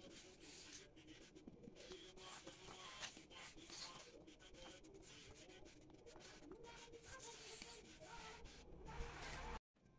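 Faint rustling and creasing of a sheet of origami paper as it is folded and pressed flat by hand on a tabletop, in short irregular scrapes; a brief thud about nine seconds in, then the sound cuts out for a moment.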